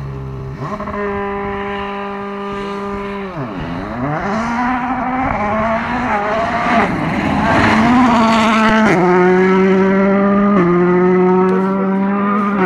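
Volkswagen Polo R WRC rally car's turbocharged 1.6-litre four-cylinder engine running hard at high revs. The pitch holds steady, dips sharply and climbs back about three and a half seconds in, goes rough and noisy for a few seconds, then steps up and back down around the nine- and eleven-second marks as it changes gear.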